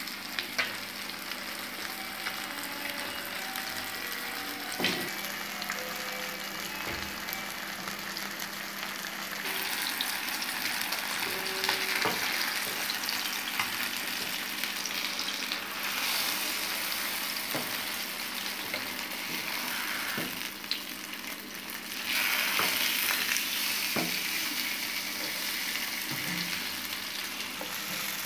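Sole fish fillets shallow-frying in oil in a nonstick pan: a steady sizzle that grows louder about a third of the way in and again near the end. A few light taps and scrapes of a spatula on the pan.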